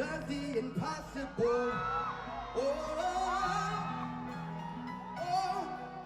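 Live gospel music: a voice singing with gliding, held notes over sustained chords.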